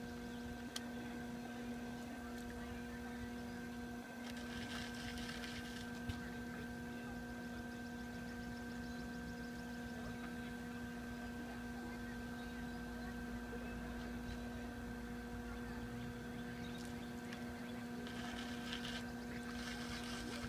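Electric potter's wheel humming steadily as it spins. A soft hiss rises twice, about four seconds in and again near the end.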